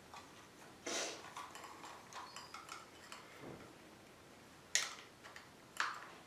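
Small plastic travel-razor kit pieces being handled and set down: a few light clicks and knocks, the sharpest two near the end.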